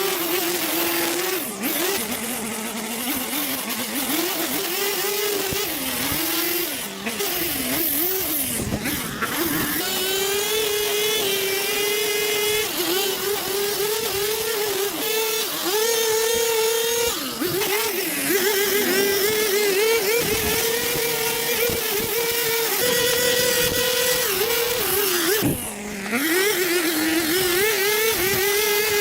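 Small petrol engine of yard-care equipment running, its pitch dipping and recovering as the load changes, then holding steadier and a little higher from about ten seconds in.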